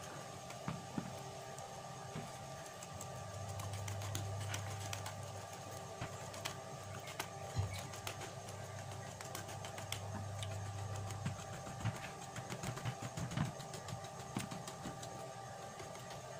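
Wire whisk beating cake batter by hand in a ceramic bowl, the wires clicking and scraping against the bowl in irregular ticks, with a low hum behind that swells twice.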